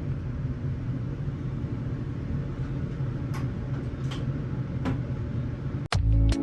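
A steady low rumble with a few faint ticks, cut off abruptly near the end as music begins.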